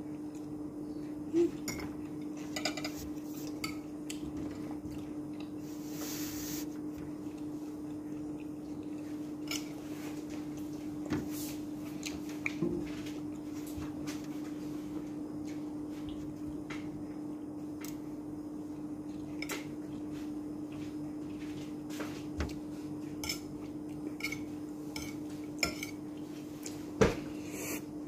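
Metal fork and spoon clinking and scraping against a plate of rice during a meal, in scattered sharp clicks, the loudest near the end. A steady low hum runs underneath.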